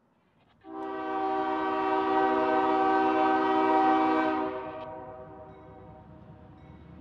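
Diesel freight locomotive sounding one long horn blast of about four seconds as it approaches. After the horn cuts off, the locomotive's engine and the train run on more quietly as it draws nearer.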